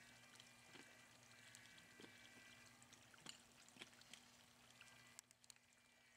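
Near silence: a faint steady hum with a few small clicks.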